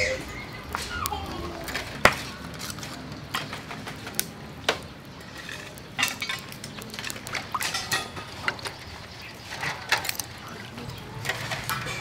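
Irregular sharp clinks and clicks of hard objects knocking together: scallop shells and steel bowls being handled during cleaning.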